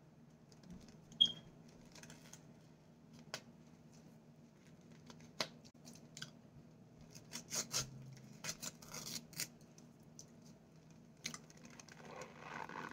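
Packed cornstarch crunching and squeaking as it is bitten and chewed: a loud squeaky click about a second in, then scattered sharp crackles that bunch together around seven to nine seconds in.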